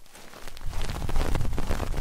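Close-up rubbing and scratching on a microphone, a dense crackle of small clicks that swells into a low rumble about half a second in.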